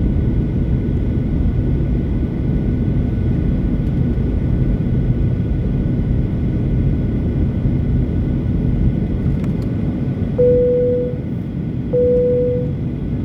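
Steady low rumble of an airliner cabin during descent, engine and airflow noise, with faint steady whines above it. Near the end a cabin chime sounds twice, two short tones about a second and a half apart, the signal before a cabin announcement.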